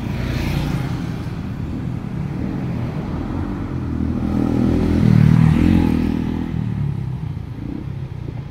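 Road traffic: cars driving past, with a steady engine hum that swells as a car passes close by about five seconds in, then fades.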